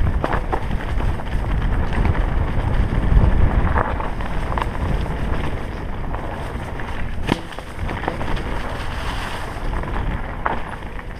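Wind buffeting a helmet camera's microphone as a mountain bike descends a rough dirt trail, with the tyres rolling over dry leaves and stones. Scattered rattles and knocks from the bike over bumps, the sharpest about seven seconds in.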